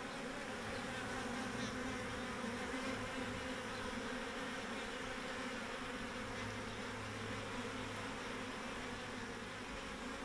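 A swarm of honeybees buzzing in a steady hum, the wingbeats of many bees blending together.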